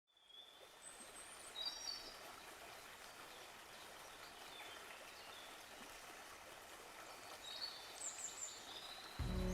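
Faint steady rush of river water running high in spring flood, with a few short, high bird chirps about a second in and again near the end.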